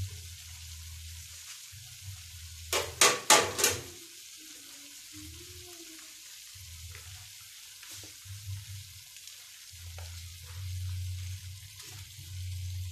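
Vegetables sizzling in a wok on a gas stove while a spatula stirs them, with a quick run of four or five loud scrapes and clanks of the spatula against the pan about three seconds in.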